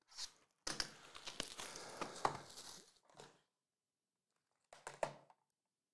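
Box cutter slitting the plastic shrink wrap on a trading-card hobby box, then the wrap crinkling and tearing as it is stripped off for about two seconds. A few short rustles follow near the end.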